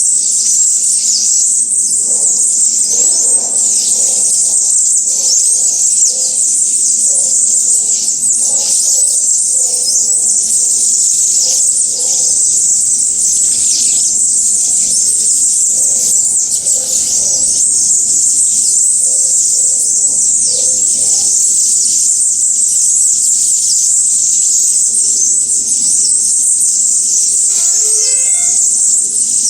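Many small birds chirping and twittering nonstop in a dense, high-pitched chorus of quick falling notes, over a steady low hum and softer lower tones that repeat about once a second.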